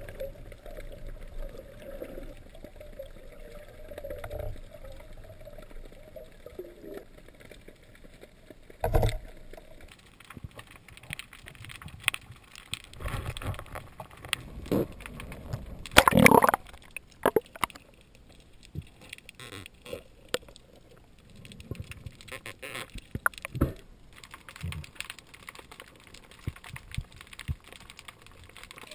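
Muffled underwater sound picked up through a camera's waterproof housing: water movement with scattered clicks and knocks. There is a louder thump about nine seconds in and a loud cluster of knocks around sixteen seconds.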